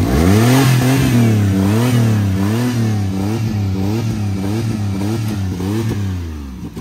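Dodge Dakota pickup's engine running just after starting, its speed surging up and down about one and a half times a second in an uneven, hunting idle, then dropping a little near the end. The engine is not sounding well.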